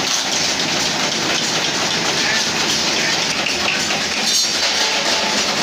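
Brush-making machine running, a steady fast mechanical clatter with no break.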